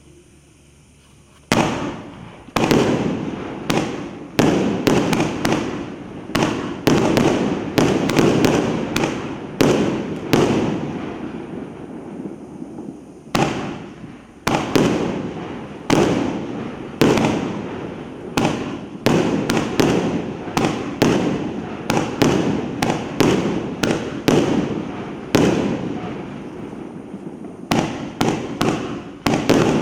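A 1.5-inch, 200-shot firework cake (Rusalut 'Kontrabanda') firing, starting about a second and a half in. Sharp shots and bursts come in quick, irregular succession, roughly one or two a second, each trailing off in an echo.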